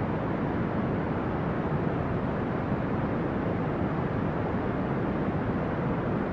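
Brown noise: a steady, deep rushing hiss, strongest in the low end and rolling off toward the highs, with no changes or events.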